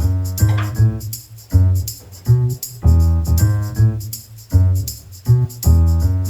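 Background music with a steady beat: deep bass notes, keyboard chords and a bright shaker or tambourine rhythm on top.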